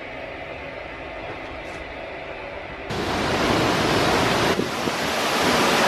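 A quieter steady hum, then, about three seconds in, loud hurricane wind and rain rushing in gusts, with the wind buffeting the microphone.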